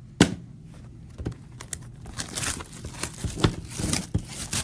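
Trading-card pack wrapper being torn open and crinkled, after a sharp knock about a quarter second in.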